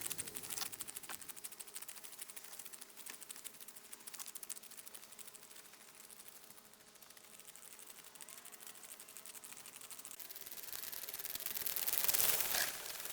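Homemade ice resurfacer at work on the pond rink, giving a fast, fine rattle of clicks over a hiss. The hiss swells and then cuts off sharply near the end.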